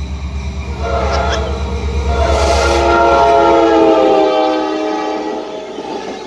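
Norfolk Southern diesel locomotives passing close by, their horn sounding one long chord from about a second in. The horn is loudest as the units go past and sags slightly in pitch as it fades, over a low, pulsing engine rumble.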